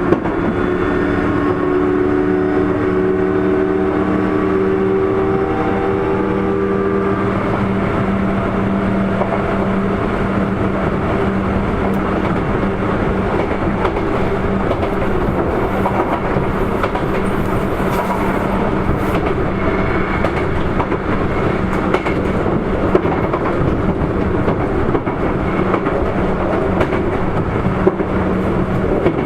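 Sotetsu 8000 series train running: steady tones from its Hitachi IGBT-VVVF inverter and traction motors stop about seven seconds in, as the power cuts off, and the rest is wheel-on-rail rumble with clickety-clack from rail joints and a low steady hum.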